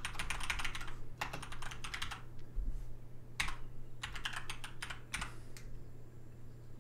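Typing on a computer keyboard: quick runs of keystrokes in several short bursts with brief pauses between them.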